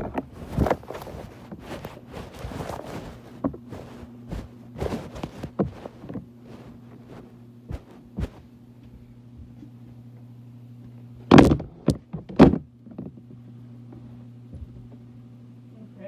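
Scattered knocks and thunks, thickest in the first few seconds, over a steady low hum. Two loud thuds about a second apart come past the middle.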